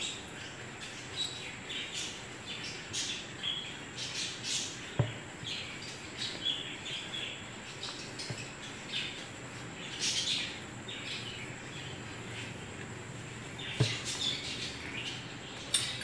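Wet, sticky squishing of hands mixing mashed boiled potato filling in a plastic bowl, in short irregular bursts, with small bird chirps in the background. Two sharp knocks, one about five seconds in and one near the end.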